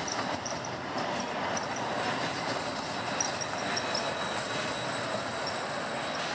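Siemens Combino low-floor tram passing close on curved street track, its wheels running with a steady rumble on the rails and giving short high squeaks from time to time.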